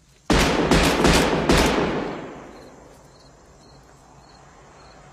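Four handgun shots in quick succession, fired into a car trunk, their echo dying away over about a second and a half. Crickets then chirp faintly at an even pace, about every half second or so.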